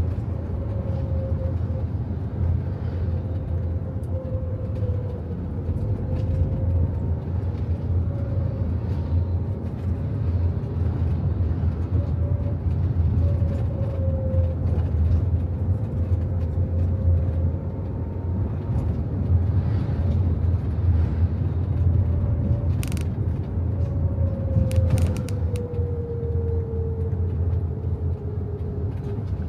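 Inside a moving car: the steady low rumble of engine and tyre noise, with a faint whine that slowly drifts up and down in pitch as the speed changes. A few sharp clicks come a little over twenty seconds in.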